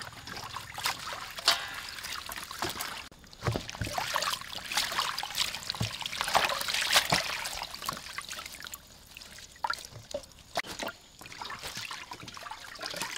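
Water splashing and dribbling as hands swish and lift leafy greens in a stainless-steel basin of water.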